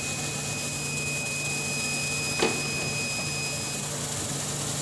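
BOPP tape production machinery running: a steady hum and hiss with a thin high whine that stops shortly before the end, and a single knock about two and a half seconds in.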